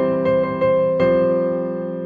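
Background music: a gentle electric piano playing notes every half second or so.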